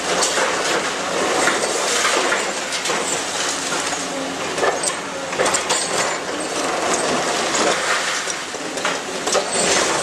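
CAT 330D long-reach demolition excavator crushing a concrete wall with its jaw attachment: irregular cracking and clattering of breaking concrete and falling rubble over a steady rush of noise.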